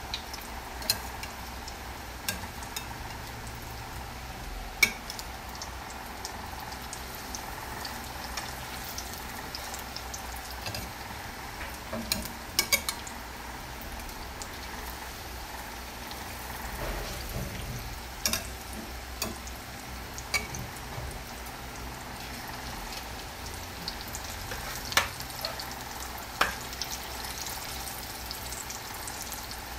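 Breaded banana cheese balls deep-frying in oil in a metal wok on low heat: a steady sizzle, with a sharp pop or click every few seconds.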